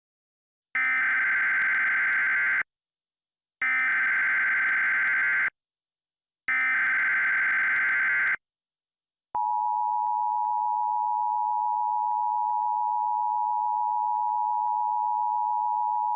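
Emergency Alert System SAME header: three bursts of buzzy data tones, each about two seconds long with a second's gap between them, announcing an emergency alert. About nine seconds in comes the steady two-tone EAS attention signal, which holds without a break.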